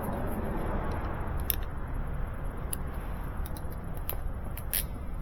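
A few faint, sharp clicks of small hand work with wire and terminals over a steady low background rumble.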